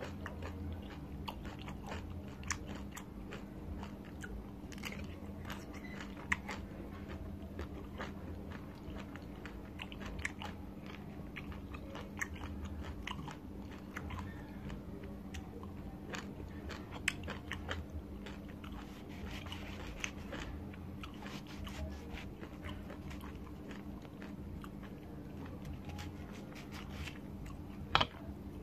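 A person biting and chewing pieces of mango, with many small mouth clicks over a steady low hum. Near the end there is one sharp knock as a knife is worked against the plate.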